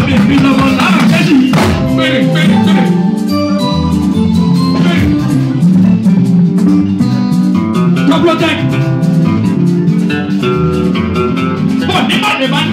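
Live band music through a PA system, with guitar and drums, and a man singing into a microphone near the start and again near the end.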